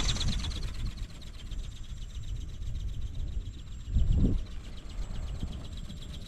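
Strong wind buffeting the microphone in low gusts, with the fast, rhythmic high buzz of a small ornithopter's brushless motor and gear-driven flapping wings, slowly fading. A stronger gust comes about four seconds in.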